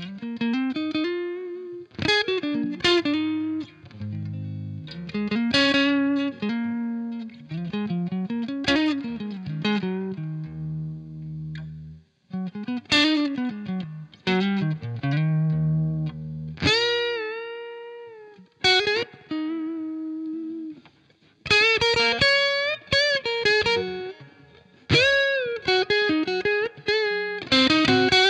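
Electric guitar playing a melodic lead with string bends and vibrato on held notes, over a backing track of sustained low bass notes.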